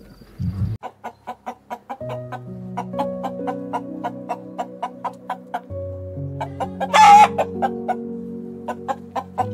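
Chicken clucking in a quick steady run, about three clucks a second, with one short loud squawk about seven seconds in, over soft background music of long held notes.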